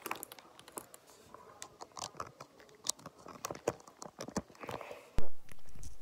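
Handling noise on the recording device: fingers tapping and rubbing close to the microphone in a quick, irregular run of clicks and rustles, then a loud thump about five seconds in followed by a low rumble that fades.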